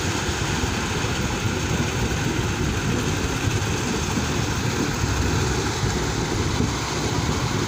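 Concrete mixer truck's diesel engine running steadily while its drum turns to discharge wet concrete down the chute into a tremie hopper.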